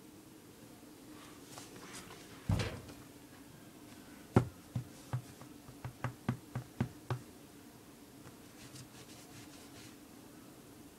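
A dull thump, then a sharp knock followed by a quick run of about eight softer knocks over about three seconds, over a faint steady hum.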